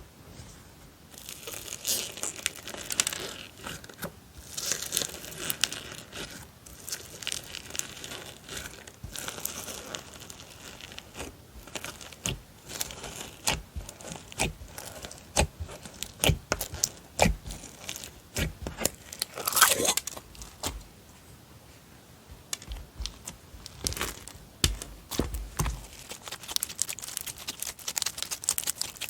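Slime being kneaded, stretched and pressed by hand, making irregular crackling, crinkling and popping clicks, with a short lull about three-quarters of the way through.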